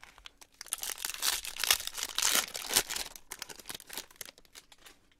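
Trading-card pack wrapper being torn open and crinkled: a dense crackle that starts about a second in and thins out near the end.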